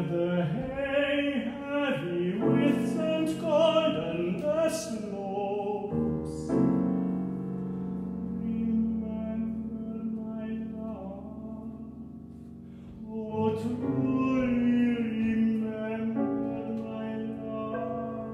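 A classically trained solo voice singing a contemporary art song in operatic style, with piano accompaniment. Quick sung phrases give way to long held notes about six seconds in, and the singing picks up again near the end.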